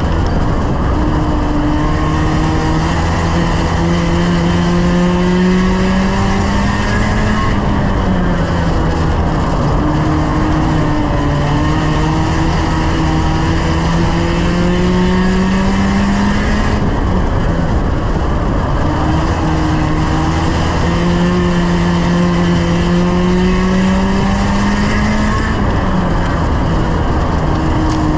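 A 1-litre stock car's engine heard from inside the roll-caged cockpit, running hard. Its note climbs slowly for several seconds and then drops back about every nine seconds, three times, over steady road and wind noise.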